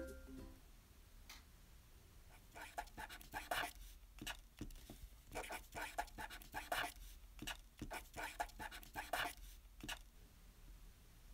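Felt-tip marker writing on a card, faint scratchy strokes in three short runs of a second or two each, with a few soft taps between.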